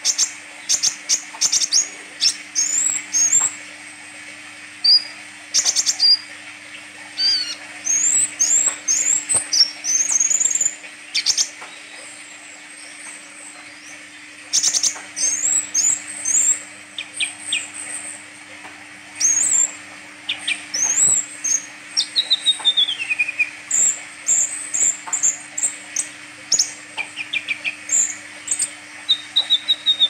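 Caged Van Hasselt's sunbird (kolibri ninja) singing vigorously: quick runs of sharp high chips and short rising whistles in bursts, with a few longer falling notes near the middle and end.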